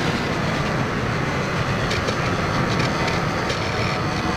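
Firebird Stratos RC airplane's electric motor and propeller running steadily in flight, mixed with wind rush, heard from a camera riding on the plane. The motor's whine drifts slowly in pitch, with a few faint clicks.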